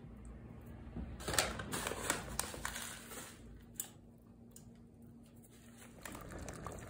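Salt crystals crushed between fingertips and sprinkled into a pot of stew: a run of small crisp crackles about a second in, fading out after three seconds, with one more click a little later over a faint steady hum.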